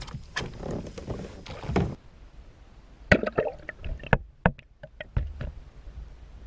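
Irregular knocks and clunks on a kayak, several in quick succession, the loudest about three seconds in.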